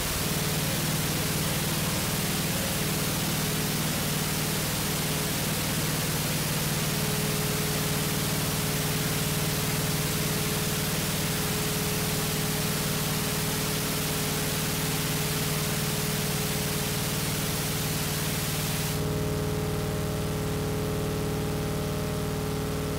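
Closing passage of an electronic track: a steady wash of white-noise hiss over sustained low drone notes. About nineteen seconds in the hiss drops back and several more held tones come through.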